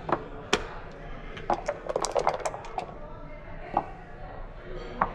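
Backgammon checkers clicking down on the board, with a quick run of rattling clacks about two seconds in as the dice are shaken and rolled onto the board, then single clicks as checkers are moved.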